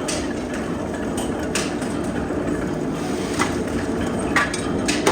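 Factory machinery running with a steady hum, with irregular sharp metallic clicks and knocks every second or so.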